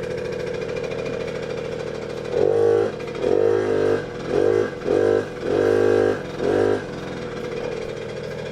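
Suzuki JR50's small two-stroke single idling steadily, then blipped six times in quick succession, each blip briefly raising the pitch before it drops back to idle. It runs on a newly fitted replacement carburettor after about ten years of sitting.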